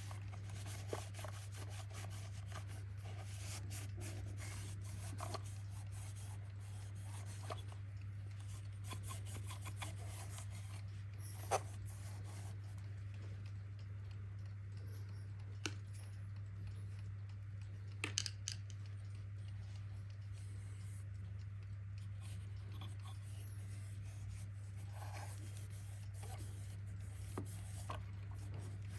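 Rubbing and handling noises from small parts being worked on by hand, with scattered light clicks at irregular times. A steady low hum runs underneath.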